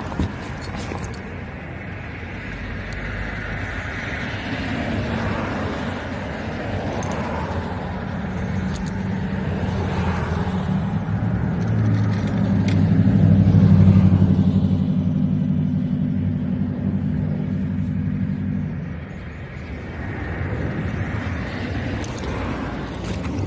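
Road traffic going by: cars swell and fade with tyre noise, and the loudest passes around the middle with a low engine hum that dies away a few seconds later. A brief click sounds right at the start.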